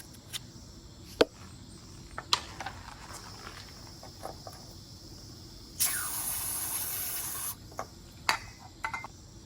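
Sharp plastic clicks and knocks from working a car's rear parking sensor and its retaining tabs out of the bumper, with a scraping rub lasting under two seconds about six seconds in.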